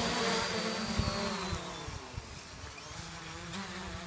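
Bugs 4W brushless quadcopter's motors and propellers buzzing as it comes down, the pitch sinking slightly and the buzz fading about halfway through.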